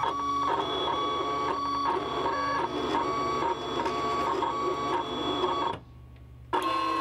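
Sizzix eClips electronic cutting machine cutting vinyl, its motors driving the mat back and forth and the blade carriage across it. A whine of several tones that shifts pitch in short steps, stopping about six seconds in, then running again briefly near the end.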